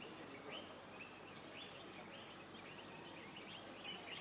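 Faint outdoor ambience with birds chirping: many short, rising chirps, over a steady high-pitched trill.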